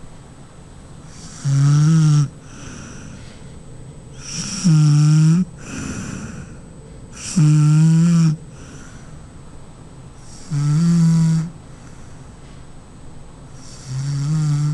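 A sleeping woman snoring: loud, pitched snores about every three seconds, five in all, with softer breaths between them.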